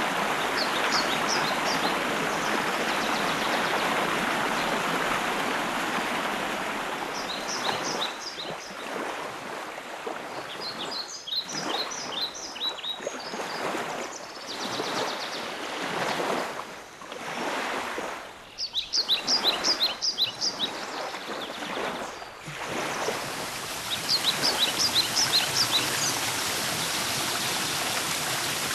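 Rushing water of a stream, with a songbird singing short phrases of quick high chirps five times. The water noise drops and swells unevenly through the middle stretch.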